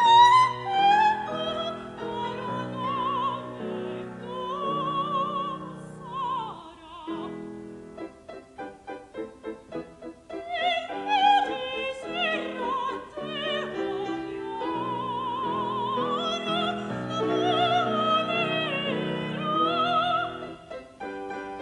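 Solo soprano singing an opera aria with piano accompaniment, her high notes sung with vibrato and trills. About six seconds in her voice stops while the piano plays short detached chords, and she comes back in about four seconds later.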